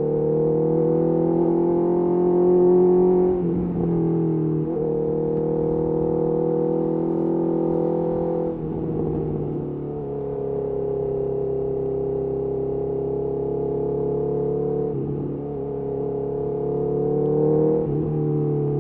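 Honda CBR650R inline-four engine through a Mivv MK3 carbon exhaust, accelerating through the gears: the engine note climbs in each gear and dips briefly at several gear changes, with a steadier stretch of cruising in the middle.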